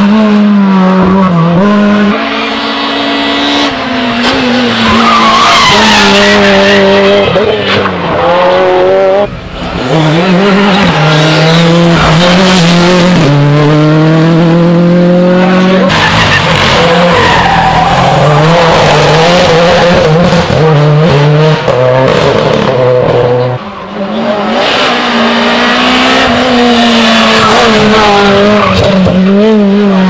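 Rally cars driven flat out through corners one after another, engines revving high and dropping at each gear change, with tyres sliding on the loose, muddy surface.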